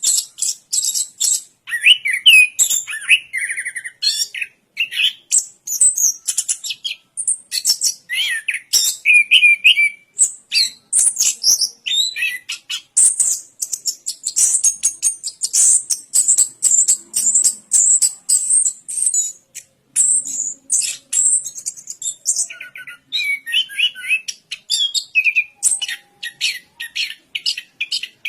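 Chestnut-capped thrush (anis kembang) singing a long, rapid, varied song: a near-continuous run of quick high chips and trills, mixed with lower warbled phrases.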